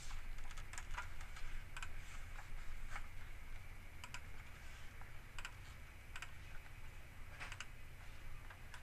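Irregular keystrokes and clicks on a computer keyboard, a few sharp taps every second or so, over a low steady hum.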